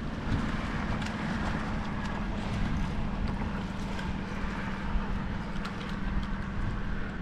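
Spinning fishing reel being cranked to bring a hooked fish up to the bridge, giving a steady low whir that stops near the end, with wind on the microphone.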